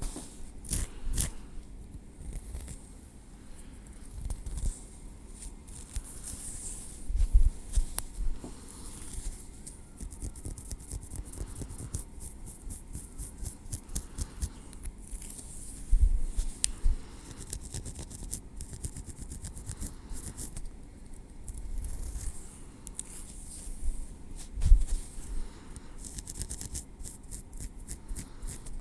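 Metal tweezers clicking and scraping through hair and over the scalp close to the microphone, in fine crackly ticks that come in quick runs, with a few soft low thumps.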